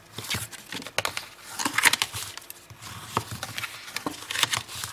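Scored cardstock being folded along its crease lines, by hand and with a bone folder: irregular short papery crackles and rustles with several sharp ticks.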